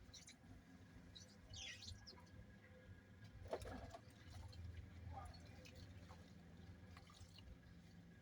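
Near silence: faint room tone with a few brief, soft, scattered sounds.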